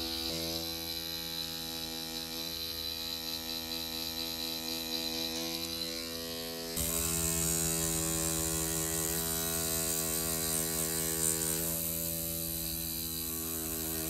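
Cartridge tattoo machine running steadily while shading skin, an even motor buzz. About halfway through the sound turns louder and brighter.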